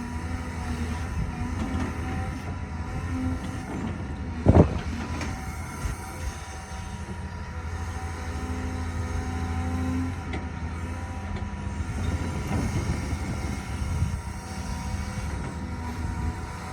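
Heavy diesel construction machinery running steadily with a deep drone, with one loud metallic clank about four and a half seconds in.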